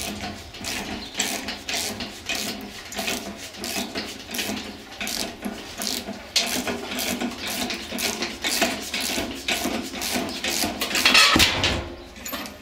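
Socket ratchet wrench clicking in quick runs of pawl clicks, with short gaps between strokes, as it turns a bolt inside a squirrel-cage blower housing. It is loudest near the end.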